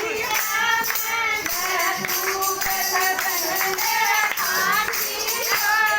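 A high voice singing a Haryanvi bhajan in long, wavering phrases over music with jingling, tambourine-like percussion.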